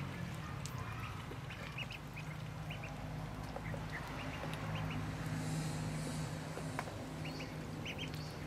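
Ducklings peeping in short, high calls scattered all through, over a steady low hum.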